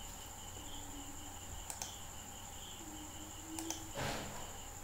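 Two faint mouse clicks, a couple of seconds apart, over a steady background of chirping crickets and a low electrical hum.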